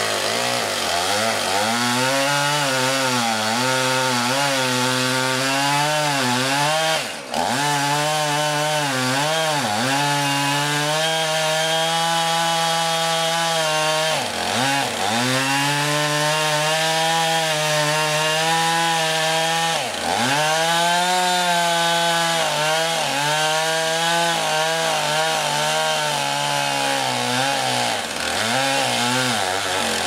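Gasoline chainsaw running near full throttle as it cuts into a big oak log, its engine speed wavering as the chain works through the wood. The revs drop briefly a few times, then climb back.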